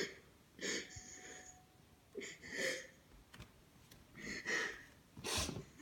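Soft breathy sniffs or breaths close to the microphone, about five short puffs spaced a second or so apart.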